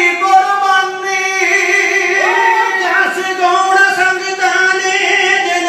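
A man singing through a microphone in a high voice, holding long notes, with a rising slide into a new phrase about two seconds in.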